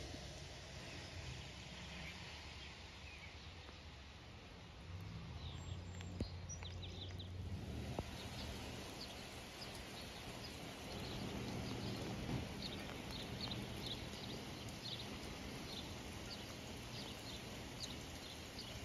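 Wet outdoor ambience: a steady hiss over a low rumble of wind on the microphone. From about six seconds in, short high chirps repeat several times a second.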